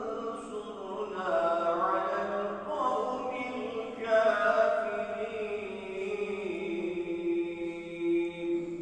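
A man's unaccompanied Islamic chant, sung in long phrases whose pitch bends and wavers, the last note held for a couple of seconds near the end.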